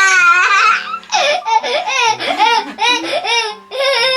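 A young child laughing hard in repeated high-pitched peals, with a brief break about a second in.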